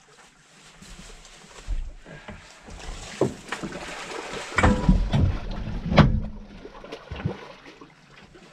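Irregular knocks, clicks and thumps of gear being handled aboard a small boat, loudest about halfway through.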